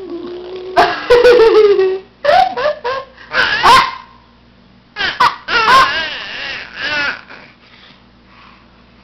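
Baby vocalising in three bursts of high-pitched squeals, babble and laughter, then falling quiet for the last two seconds.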